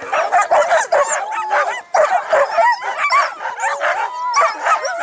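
A large team of tethered sled dogs barking, yipping and whining all at once, a dense chorus of many overlapping short calls with no let-up.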